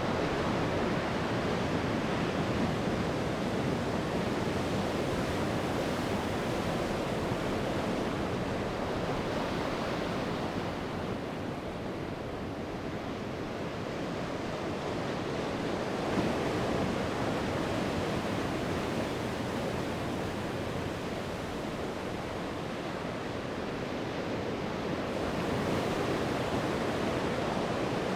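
Sea waves surging and washing onto the shore, a continuous rush of surf that eases off for a few seconds in the middle and swells again near the end.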